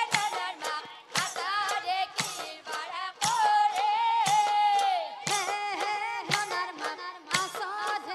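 Woman singing an Assamese nagara naam devotional song in a wavering, ornamented melody over a steady held tone, with sharp drum and cymbal strikes about once a second.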